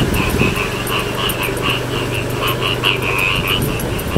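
A chorus of many frogs croaking, short calls overlapping several times a second, over a low rumble.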